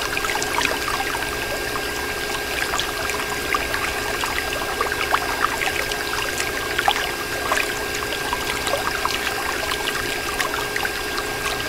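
A thin stream of water from a small plastic tube pours and splashes, first over the ground and later into a bowl of water, with many small splashes. A faint steady hum runs underneath.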